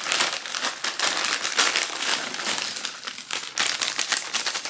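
A Doritos snack bag being handled, its plastic crinkling and crackling continuously.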